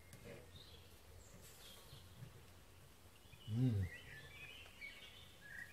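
A man's short hum, an 'mmm' that rises and falls in pitch, about three and a half seconds in, over quiet background with birds chirping.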